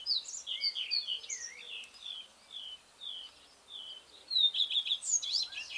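Songbirds singing: a run of short, down-slurred whistled notes about two a second, then a faster jumble of varied notes from about four seconds in.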